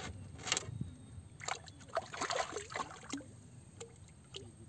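Water sloshing and splashing at the side of a bamboo raft, with scattered short clicks and knocks from handling the fishing rod and line. The splashes are busiest around the middle.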